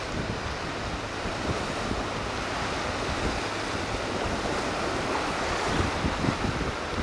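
Small waves washing in and sloshing over a sandy beach, with gusts of wind buffeting the microphone. The wash grows a little louder near the end.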